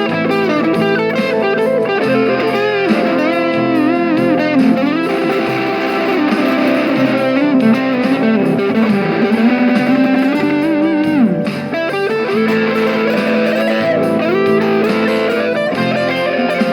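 Electric guitar played through a mini guitar amplifier: a lead line of sustained notes with string bends and vibrato, over a steady ringing chord underneath.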